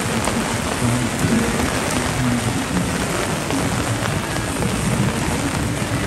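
Heavy typhoon rain falling steadily, a dense, even hiss of rain with an irregular low drumming underneath.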